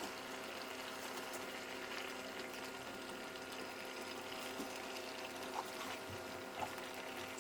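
Gravy simmering in a pan on the stove: a steady, quiet bubbling hiss, with a couple of soft knocks near the end as the stuffed vegetables are set into it.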